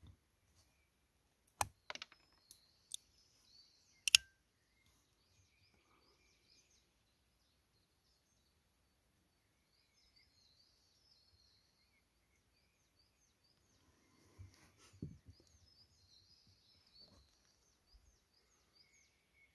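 A few sharp metallic clicks from a small two-barrel Flobert pistol being handled, the loudest about four seconds in, followed by birds chirping and faint handling sounds on the wooden table.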